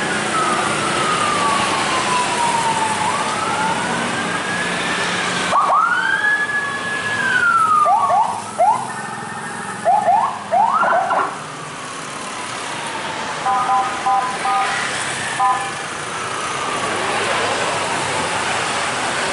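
Ambulance sirens wailing as a convoy of ambulances drives past, with slow rising and falling sweeps, a run of quick rising whoops around the middle, and a few short bursts of steady, multi-note tones later on. Motorcycle and car traffic runs underneath.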